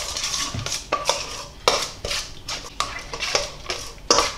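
A metal spoon stirring a wet paste-like marinade in a stainless steel mixing bowl, with repeated scraping strokes and clinks against the bowl's sides.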